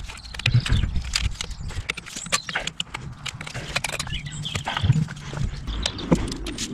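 Irregular clicks, knocks and scrapes of the thermostat housing being wiggled back into place on a diesel V6 engine, with a few heavier low thumps.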